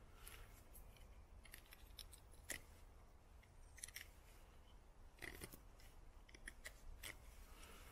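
Taxus Wisdom bushcraft knife shaving thin curls off a wooden stick to make a feather stick: about a dozen short, crisp scraping strokes at uneven intervals.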